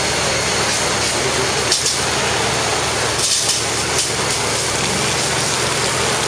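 A high-pressure water jet from a hose spraying up into the air and coming down as artificial rain, hissing steadily over the steady hum of a running engine. A few brief louder gusts come about two and three seconds in.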